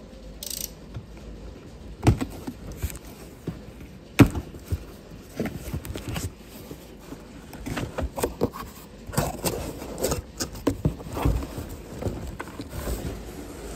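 Cardboard shipping box being handled and its flaps pulled open: irregular scraping, rustling and sharp knocks of cardboard, the two loudest knocks about two and four seconds in.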